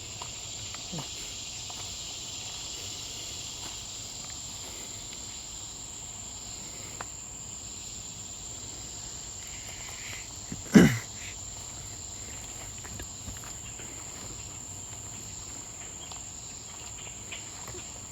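A steady, high-pitched insect trill from trigs or crickets, with a wider cicada buzz underneath that fades out over the first few seconds. About eleven seconds in there is one loud, brief sound that drops in pitch.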